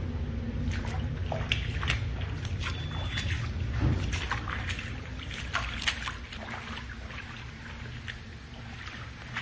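Footsteps splashing through shallow standing water on a flooded floor, a run of short wet slaps and splashes that thins out toward the end, over a steady low rumble.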